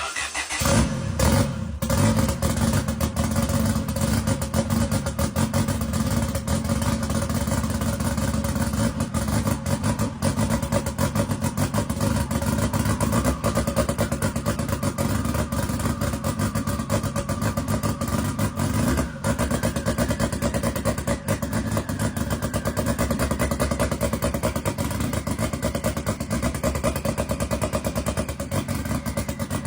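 An engine starts and catches at once, then runs on at a steady, rapidly pulsing idle. The owner is unsure whether the engine is on a start tune or misfiring.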